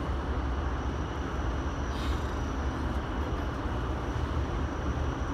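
Cabin noise of an Airport Railroad (AREX) express train under way: a steady low rumble with a faint, steady high tone above it.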